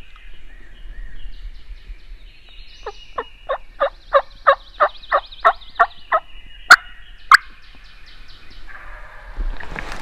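Wild turkey calling: a run of about a dozen yelps, roughly three a second, followed by two sharper, louder notes. Songbirds sing faintly in the background.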